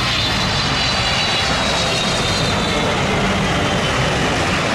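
Twin-engine Boeing 777 airliner's jet engines at takeoff power during the takeoff run and rotation: a steady, loud rush of engine noise with a high whine that slowly falls in pitch as the aircraft passes.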